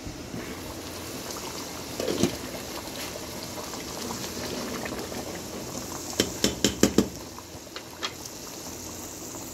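Pot of nihari broth boiling hard on a gas stove with its lid off, stirred with a wooden spoon. A short clatter about two seconds in, and a quick run of about five knocks a little after six seconds.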